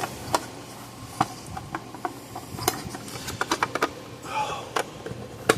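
Plastic case halves of an electric fence charger being handled and pushed together: irregular sharp clicks and knocks with a brief scrape, the loudest click near the end as the parts go into place.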